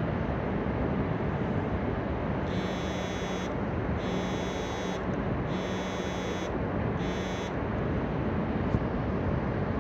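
An electronic buzzer sounds four times, each about a second long with short gaps, the last one shorter, over a steady rushing background noise.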